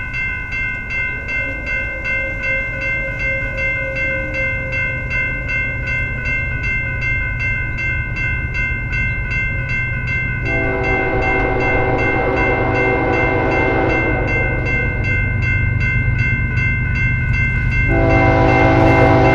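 Railroad crossing bell ringing steadily, about twice a second, over a low rumble that grows louder as a train approaches. About halfway through, a diesel locomotive's multi-chime horn sounds a long blast, then a second blast starts near the end as the train draws closer and its noise rises.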